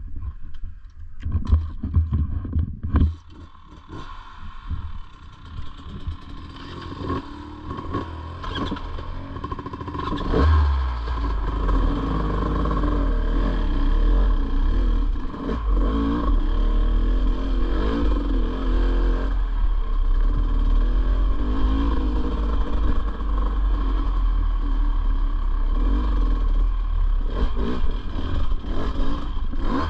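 Dirt bike engine ticking over quietly after a few knocks at the start, then revving about ten seconds in as the bike pulls away, and running steadily under load up a trail for the rest of the time.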